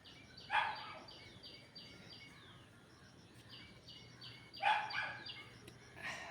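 A bird calling: two runs of short, falling high notes, each run with a louder, harsher note, and another harsh note near the end.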